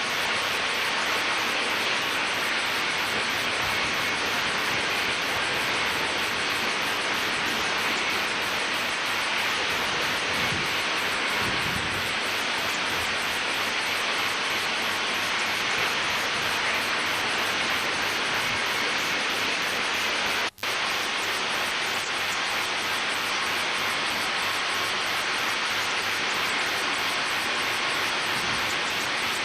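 A steady, even hiss with a brief cut-out about twenty seconds in.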